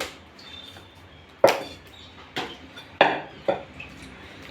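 Chicken being chopped into pieces with a heavy knife on a chopping block: four sharp chops, unevenly spaced, about half a second to a second apart.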